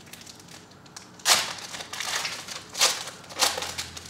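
Trading card pack wrapper crinkling as it is torn open by hand, in three rustling bursts, the loudest a little over a second in.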